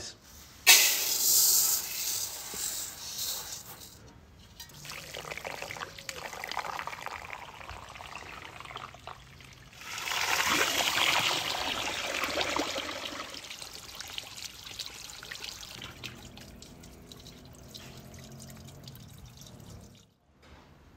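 Water from a garden hose pouring and splashing into an enamel basin of strawberries, filling it. The flow starts suddenly just under a second in, is strongest in the middle and grows quieter toward the end.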